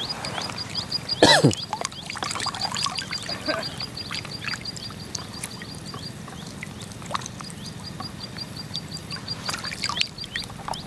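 Outdoor animal calls over the water: a rapid, even run of short high chirps, about seven a second, that stops about six seconds in and starts again a second later. A loud falling call comes about a second in, with scattered small splashes and trickles of water.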